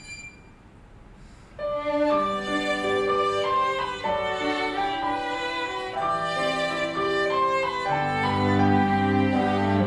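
Live string quartet playing: after a brief hush, the ensemble comes in strongly about a second and a half in, with held bowed notes over a low cello line.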